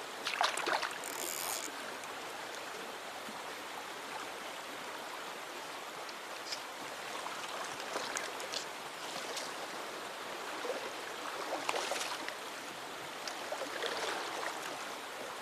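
River flowing steadily, broken by splashes of a large hooked trout thrashing at the surface, the loudest about half a second in and more near the middle and end.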